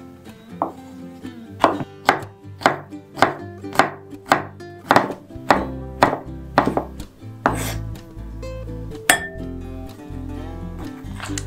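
Chef's knife chopping pickled cucumbers on a wooden cutting board: even knocks about two a second for several seconds, then a single knock a little later, over acoustic guitar background music.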